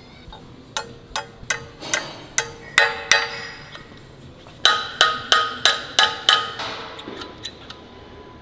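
Hand hammer striking a steel pin driven into a steel excavator coupler frame: sharp metal-on-metal blows that ring. About eight quick blows, a short pause, then six more, then a few light taps near the end.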